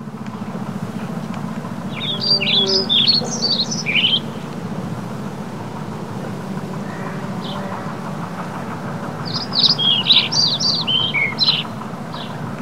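A songbird singing two quick bursts of high chirping notes, about two seconds in and again near the end, over a steady low background rumble.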